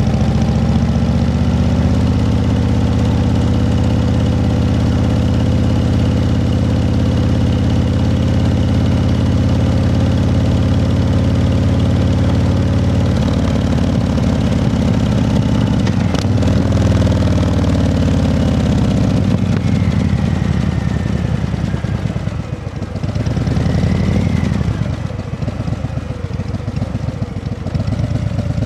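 An engine idling steadily, its pitch shifting about halfway through, then rising and falling a few times near the end.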